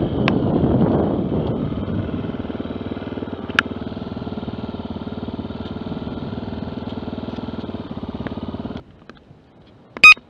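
A motor vehicle engine running steadily, loudest in the first couple of seconds, then stopping abruptly about nine seconds in. About a second later comes a short, loud electronic beep.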